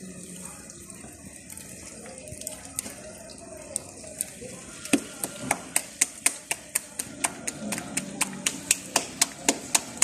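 Sharp crackling pops, about three a second, starting about halfway in over a faint steady hiss, from onions cooking in a large aluminium pot over a wood fire.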